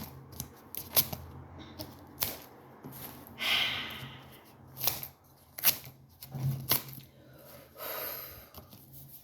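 Packaging being handled and opened by hand: irregular sharp clicks and taps with short bursts of rustling and crinkling, the longest about three and a half seconds in.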